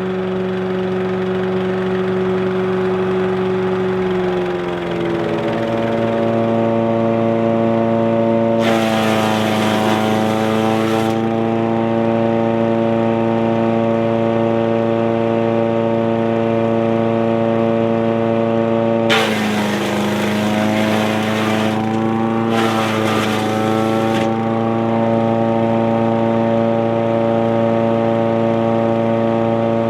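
Wood chipper's 7 HP 212cc gas engine running with a steady whine, rising in pitch about five seconds in. Three times, about nine, nineteen and twenty-three seconds in, a harsh chipping noise breaks in as material is fed through the blades, and the engine pitch dips slightly under the load before recovering.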